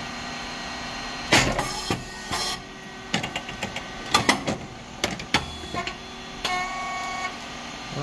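SYP35100 rice cake machine running its press cycle as the hydraulic pressure builds: a steady hum with a series of sharp clicks and knocks, and a short steady whine near the end.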